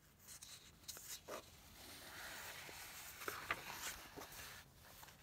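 A page of a paper picture book being turned: soft rustling and sliding of paper, with a few light clicks of handling, lasting about four seconds.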